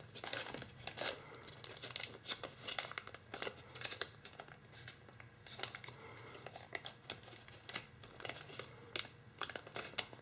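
Tissue foil (kitchen foil bonded to tissue paper) crinkling in the hands as a flap is reverse-folded and pressed flat: quiet, irregular little crackles.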